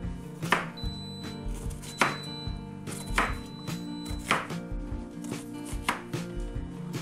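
Kitchen knife chopping an onion on a cutting board: single sharp cuts about once a second, five in all.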